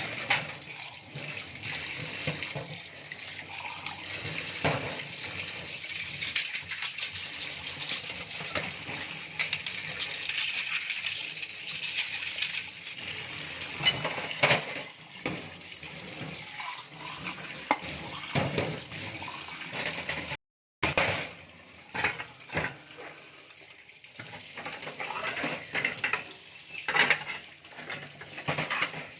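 Dishes being washed by hand at a sink: tap water running with plates and cutlery clinking against each other. About two-thirds of the way in the sound cuts out for a moment, and after that the clinks stand out more over less running water.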